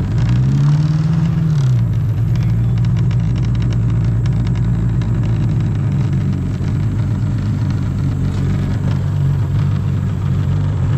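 Jet ski engine running steadily at low speed, with a brief rev that rises and falls in pitch about a second in.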